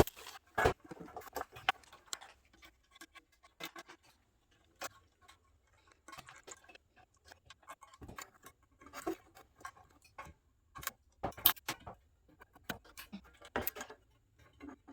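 Irregular clicks and clinks of small metal parts and hand tools during the teardown of a vintage 1960s Talk-A-Phone office intercom.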